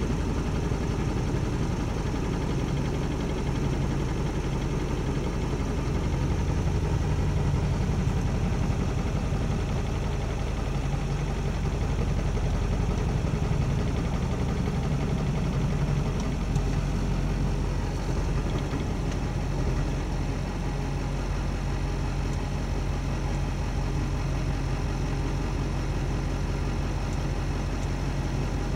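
2004.5 Chevrolet/GMC Duramax 6.6 L LLY V8 turbodiesel idling with a rough, uneven idle, which the owner suspects may come from a bad injector.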